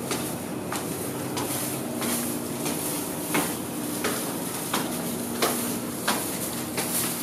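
Footsteps climbing a staircase, about three steps every two seconds, over a steady low hum.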